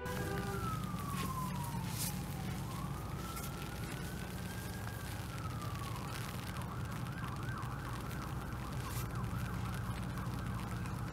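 Emergency-vehicle siren: a slow wail that falls, rises and falls again, then switches about six seconds in to a fast up-and-down yelp, over a steady low rumble.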